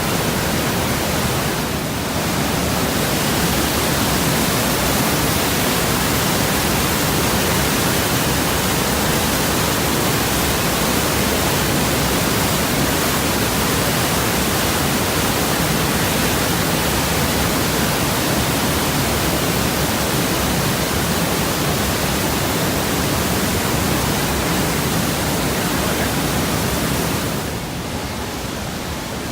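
Rhine Falls, a large waterfall, rushing as a loud, steady wall of water noise, easing slightly near the end.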